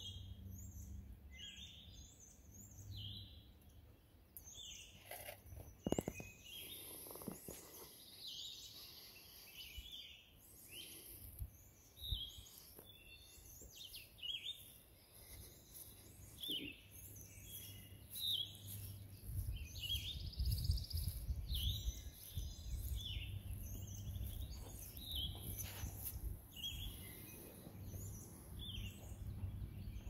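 Several songbirds chirping and calling in short, repeated notes in a morning chorus. Beneath them runs a low rumble, heaviest about twenty seconds in, with a few sharp clicks.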